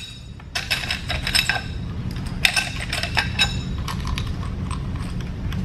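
Metal hand tools clinking on the cylinder head bolts of a Honda B18C engine as they are undone, in two short flurries of ringing clinks and a few fainter ones near the end, over a steady low hum.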